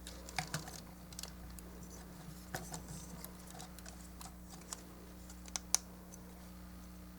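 Hard plastic parts of a High Grade Raider Gundam model kit clicking and tapping as they are handled and fitted together: light, irregular clicks, with two sharper ones close together near the end.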